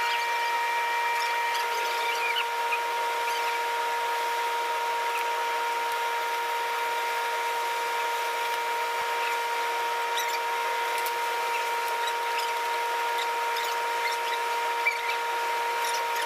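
Steady whine of a machine running, with faint scattered clicks and rustles as dough and a plastic bag are handled.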